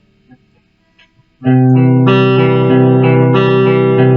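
Guitar played open strings and third-fret notes in a ringing picked pattern, the notes sustaining over one another, starting loudly about a second and a half in after a pause with a few faint finger clicks on the strings.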